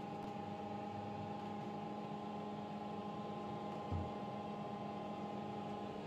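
Steady electrical mains hum from the transformer-fed carbon arc lamp rig running under load, several steady tones over a faint hiss. A single soft low bump about four seconds in.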